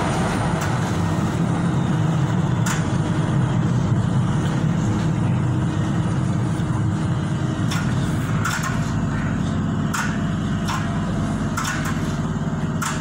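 Tyne and Wear Metro train running underground, heard from inside the carriage: a steady low rumble of wheels and running gear. Short sharp clicks come now and then, more often in the second half.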